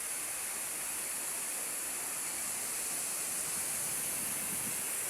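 Waterfall rushing: a steady, even rush of falling water, with a hiss at the top end.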